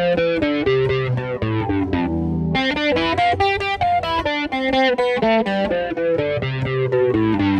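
Melody guitar playing a quick line of single plucked notes over a backing track with a low bass line.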